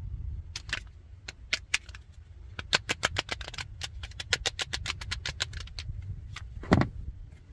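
Light plastic flaps of a 2022 Kia EV6's rear cabin pressure relief vent tapping against their frame as the loose vent insert is handled: scattered clicks, then a quick run of taps several a second, with one louder knock near the end. This flap tapping is the cause of the EV6's well-known rear rattle.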